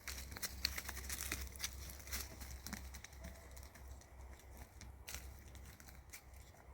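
Dry leaves and twigs rustling and crackling in forest undergrowth as goats and a walker move and browse through it. Dense crackles in the first three seconds, sparser after, over a low steady rumble.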